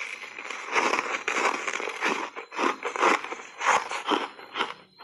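Crunching of dry foam reshaped ice coated in matcha powder, bitten and chewed in a run of crisp crunches, about two a second.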